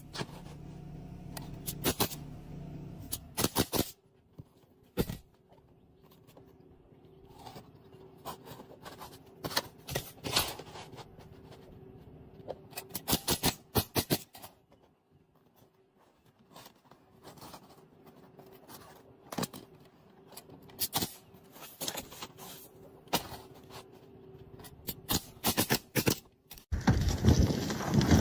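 Pneumatic roofing nailer firing quick runs of a few shots at a time, nailing asphalt shingles into a roof valley, with the scrape and rustle of shingles being handled between runs. A loud rushing noise starts near the end.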